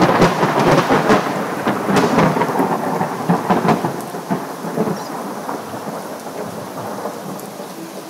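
A close thunderclap crackles and rumbles over steady rain. It is loudest in the first few seconds and then slowly dies away.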